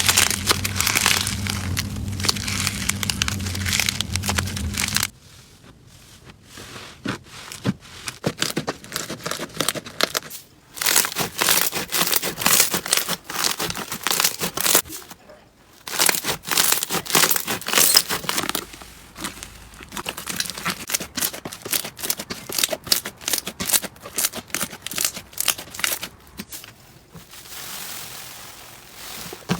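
Slime being squeezed and worked by hand: dense runs of small crackling and popping clicks, broken by a few short pauses. A low steady hum sits under the first five seconds.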